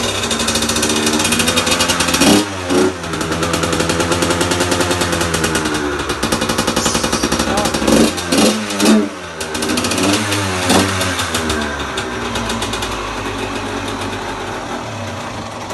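Yamaha YZ85's 85cc two-stroke single-cylinder engine running just after starting, blipped up in sharp revs about two seconds in and again several times around the middle, then settling to a steadier fast idle near the end. The owner feels it is running a bit rich.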